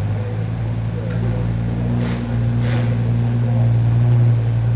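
Steady low engine drone with a few steady overtones, the upper ones shifting about a second in. Two short scuffs about two seconds in.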